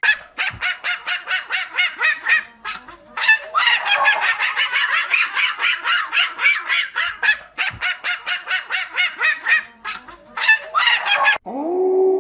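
A flock of farm waterfowl calling in rapid honks, about five or six a second, in bouts broken by brief pauses. A steady humming tone takes over just before the end.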